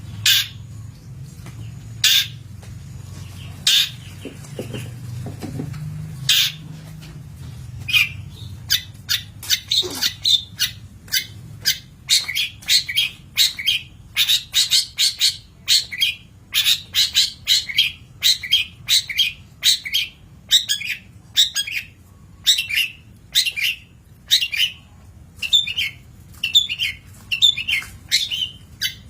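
Long-tailed shrike (cendet) calling. A few short, sharp calls come about two seconds apart, then from about eight seconds in a quick run of calls, roughly two a second, follows.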